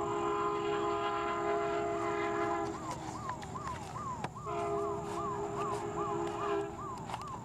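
Siren sounding a fast repeating falling yelp, about two and a half sweeps a second, over a steady multi-tone horn-like blare that drops out twice.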